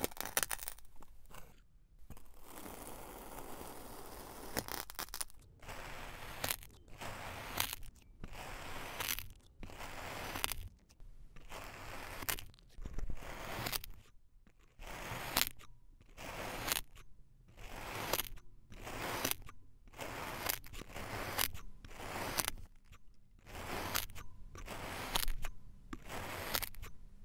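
Metal tines of a pick pushed into and pulled out of packed kinetic sand, a grainy crunch repeated about every two-thirds of a second.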